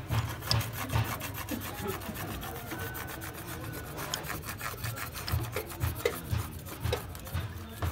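Rapid, repeated scraping strokes, several a second, without a break.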